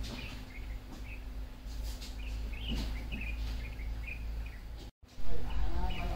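Small birds chirping in short repeated calls in the background over a steady low rumble. Just after a brief dropout about five seconds in, there is a loud thump.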